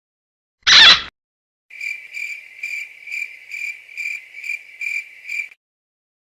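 Cricket-chirping sound effect, the meme cue for an awkward silence: a high, even chirp pulsing a little over twice a second for about four seconds. A short, loud burst of noise comes just before it, under a second in.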